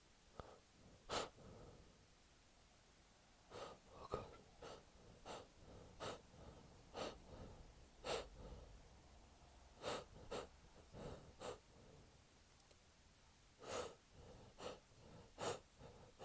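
A man's short, sharp gasping breaths through a cold-stuffed nose, about one a second and some in quick pairs: the build-up to a sneeze during a head cold.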